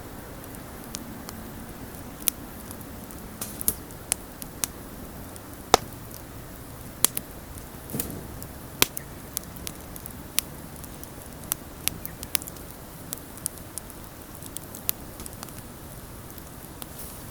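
Wood bonfire burning, crackling with irregular sharp pops and snaps over a steady low rush of flame.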